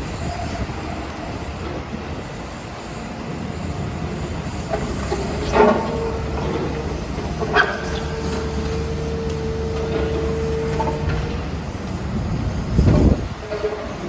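Heavy construction machinery running: a steady diesel engine hum with a whine held from about 6 to 11 seconds in, and several metallic clanks, the loudest near the end.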